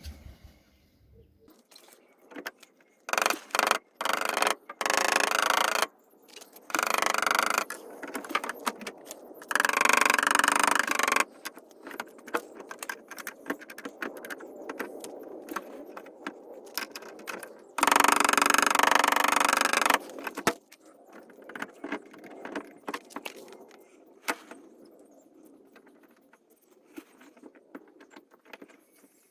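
Metal hand tools clinking and rattling in bursts of a second or two, with scattered lighter clicks in between.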